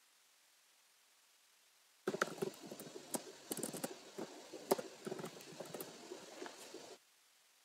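Computer keyboard typing: a run of irregular key clicks that starts about two seconds in and cuts off abruptly about a second before the end.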